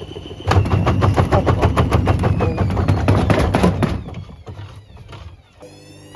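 Hoover washer dryer banging rapidly as it jumps about, several heavy knocks a second, the sign of an unbalanced drum load. The knocking starts about half a second in and dies down after about four seconds.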